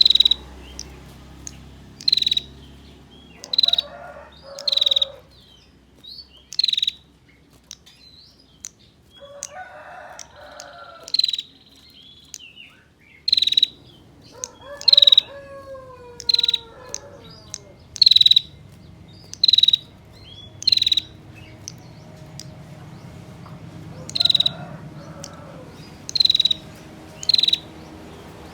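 Female prenjak (prinia) giving its 'ngetir' trilling call: short, loud, high-pitched trilled bursts repeated every second or two, a call that summons males. Fainter, lower bird chirps and gliding calls sound between some of the bursts.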